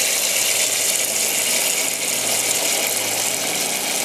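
Kitchen tap running full, a steady stream of water pouring into a stainless steel pot packed with chicken bones and vegetables as it fills.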